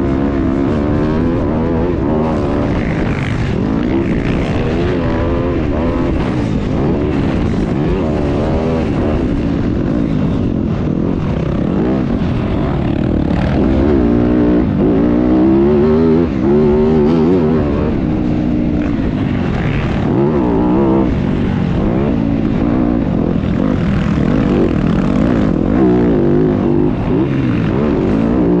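A pack of motocross bikes racing round the track, several engines revving up and falling back over each other.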